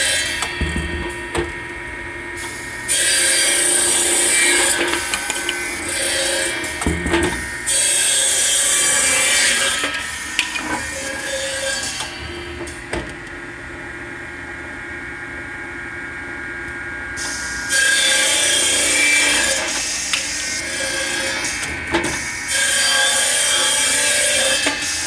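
Automatic wedge saw cutting 1-1/2 inch wood: four cuts of about two seconds each, the blade loud through the wood, with the machine running steadily between cuts.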